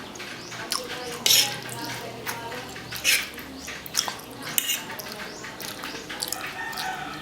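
Close-miked eating sounds: cutlery clinking against a plate, with short, sharp bursts of chewing and mouth sounds scattered every second or so.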